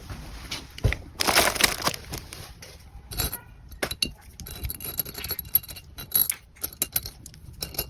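Small items and packaging being handled while an order is packed: a rustle of packaging about a second in, then a run of light clicks and clinks.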